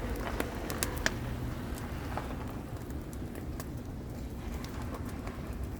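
Campfire of damp wood crackling, with scattered sharp pops, most of them in the first second or so, over a steady low rumble.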